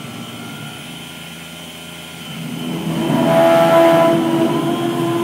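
Sieg KX3S CNC mill roughing with a 6 mm carbide end mill, cutting dry without coolant: the spindle and cut make a steady pitched whine that grows clearly louder about two and a half seconds in.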